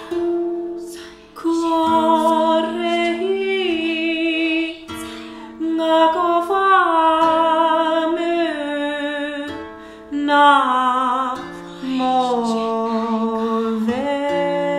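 A woman singing long, slow, wordless held notes that waver and glide, over a koto. Its plucked notes start a new sound every few seconds.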